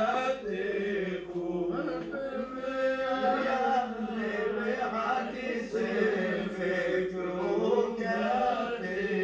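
Male voices singing a long, drawn-out chanted refrain in Lebanese zajal style, with held notes that bend up and down. This is the sung repeat of the poet's last line.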